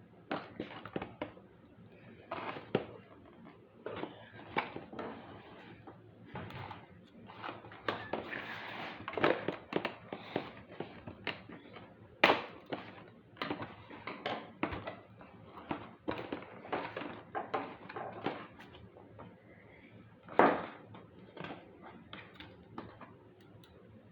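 Toy packaging being handled and opened: irregular knocks, taps and rustling of cardboard and plastic, with a sharper knock about twelve seconds in and another about twenty seconds in.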